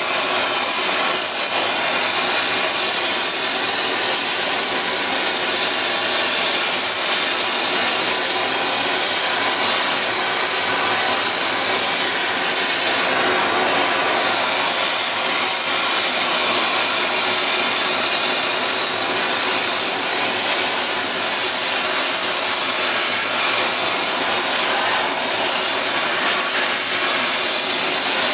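Oxy-fuel torch burning with a steady, rough hiss as its flame is played on a steel pipe.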